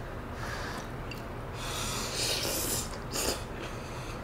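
A person eating spicy malatang draws in a long, noisy breath about one and a half seconds in, then a shorter one about three seconds in.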